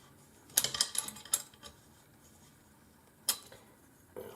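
Light metallic clicks and taps of small hardware being handled and tightened on an aluminium frame: a quick cluster of clicks about half a second in, then single sharp clicks a little after three seconds and again near the end.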